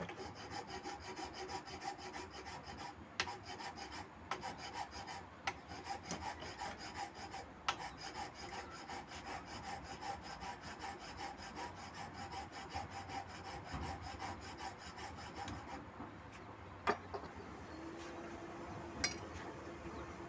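Hand file rasping on a steel bolo blade clamped in a vise, in quick, even strokes that stop about three-quarters of the way through; a couple of sharp clicks follow.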